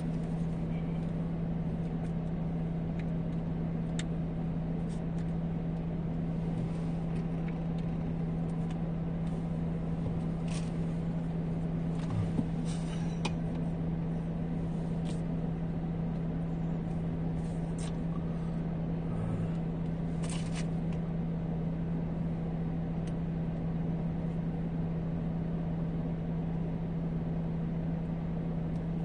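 A steady low hum inside a car cabin, one unchanging tone with a faint rumble under it, and a few faint clicks and small knocks here and there.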